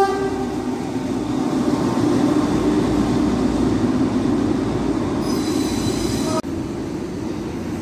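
A diesel shunting locomotive passes close by, its engine running steadily along with wheel and rail noise. Near the end a high squeal sounds for about a second, then the sound cuts off abruptly to a quieter, even station noise.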